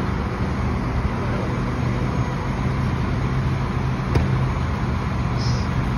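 Flatbed tow truck's engine running steadily while the bed and winch are worked to load a pickup, with a single sharp click about four seconds in.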